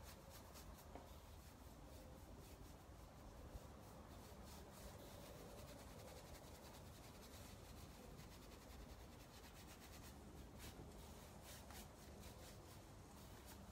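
Faint brushing: a paintbrush stroking back and forth over the wet clay paint on a wooden dresser as the colours are blended, over a low steady hum.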